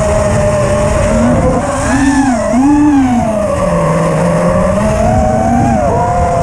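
Armattan Chameleon FPV quadcopter's Grinder 2306 brushless motors and propellers whining, the pitch rising and falling with the throttle, dipping lower about two-thirds of the way through before climbing again, over a rush of wind noise.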